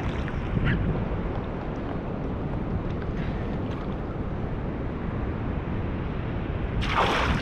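Wind buffeting the microphone: a steady low rumble of noise, with a brief louder rush of noise near the end.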